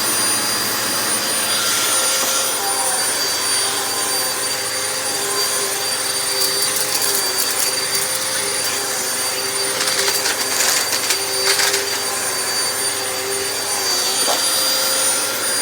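Hoover WindTunnel Max Capacity upright vacuum cleaner running steadily, its motor giving an even whine, with a few brief crackles about six and ten seconds in. The motor sounds healthy, in the owner's judgement a good motor.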